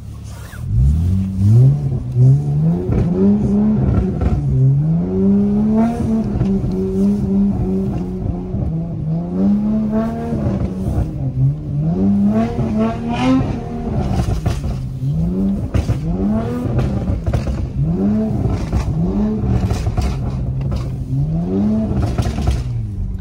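Car engine revving hard over and over, its pitch climbing and dropping again and again, as the car slides on unplowed snow.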